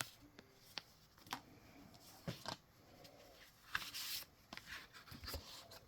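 Hands handling the paper inserts of a Blu-ray package, such as stickers and a booklet: soft, scattered rustling of paper with a few light taps and clicks.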